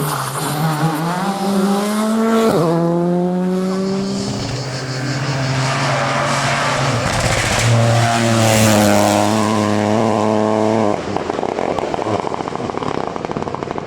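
Rally car engine at full attack, revving hard with gear changes as it passes: the pitch drops, jumps up sharply about two and a half seconds in, and holds a high note before cutting off abruptly about eleven seconds in, followed by rougher rumbling noise. Tyres squeal faintly underneath.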